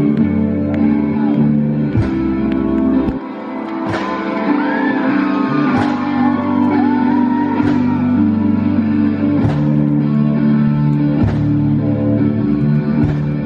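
Rock band playing live: electric guitar and bass holding loud, sustained chords, with heavy drum hits about every two seconds. In the middle, a high line slides up and down in pitch over the chords.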